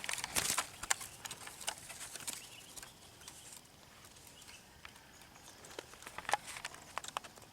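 Rustling and light clicking taps, dense for about the first second, then sparse and faint with a couple more taps near the end.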